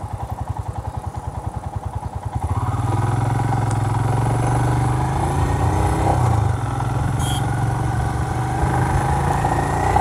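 Royal Enfield Himalayan's single-cylinder engine running at low revs with distinct, evenly spaced firing pulses, then getting louder about two and a half seconds in as the motorcycle accelerates away, its pitch climbing slowly as it rides on.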